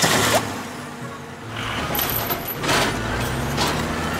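Truck engine sound effect running steadily as a toy crane truck drives off, with a few short hisses.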